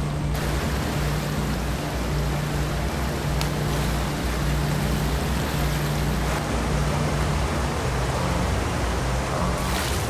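Rushing, foaming river rapids splashed through by a herd of wildebeest crossing the current: a steady wash of water noise. Low sustained music notes run underneath.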